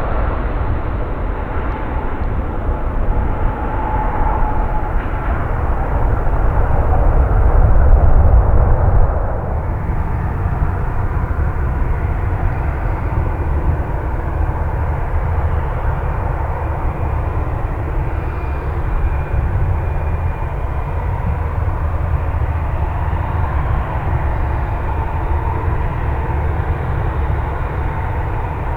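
Jet airliner on its landing approach, its engines a rushing rumble that grows to its loudest about eight to nine seconds in, then carries on steadily at a lower level.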